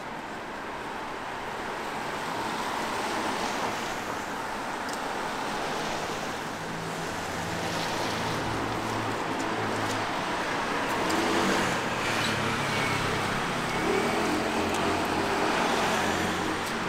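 Street traffic on a rain-wet road: a steady hiss of tyres on the wet surface, with the low hum of a car engine coming in about halfway through and running to the end.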